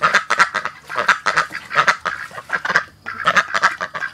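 A flock of domestic ducks quacking in quick runs of short, overlapping calls, with a brief lull about three seconds in.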